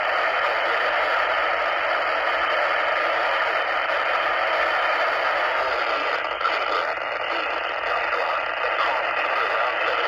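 Steady static hiss from a handheld Motorola two-way radio's speaker, tuned to a weak NOAA Weather Radio broadcast.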